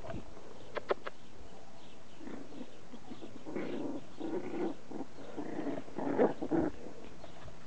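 Maltese puppies making small growls, a run of short growls that grows louder toward the end. Two sharp clicks come about a second in.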